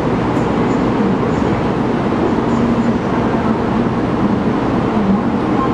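Steady low rumble of a covered high-speed rail station platform, even in level with no rise or fall.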